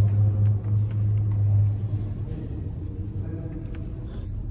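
A steady low rumble, loudest for the first two seconds and then dropping lower, with faint scuffs over it.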